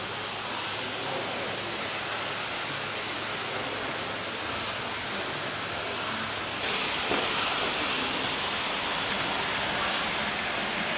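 Steady hissing background noise of a large model railway exhibition hall, with no clear single source. It gets a little louder about six and a half seconds in, with one short click soon after.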